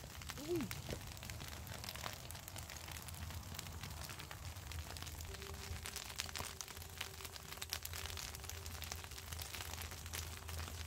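Pile of cut dry grass burning in open flames: dense crackling and popping over a low steady rumble. About half a second in, a brief gliding tone rises and falls.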